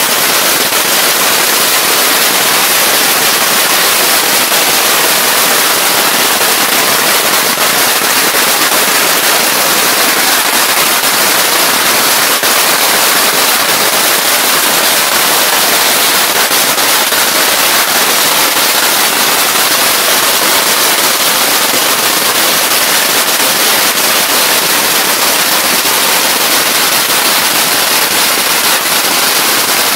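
Long hanging strings of firecrackers going off in a loud, continuous rapid crackle of bangs so dense that they run together without a pause.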